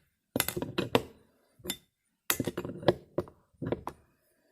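Hand tool clinking and clicking against metal carburetor parts of a John Deere 60 as a fitting is tightened down over a new gasket, in several short bursts of sharp clinks.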